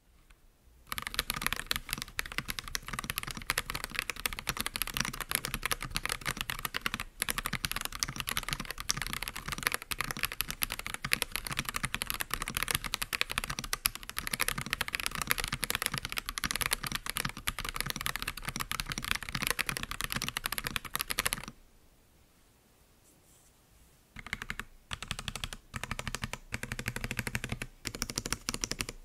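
Continuous typing on an Akko ACR Pro Alice Plus mechanical keyboard in stock form: Akko CS Crystal linear switches, a polycarbonate plate and Milk Cover Cherry-profile PBT keycaps. The typing stops about 21 seconds in and resumes a few seconds later as slower, separate keystrokes.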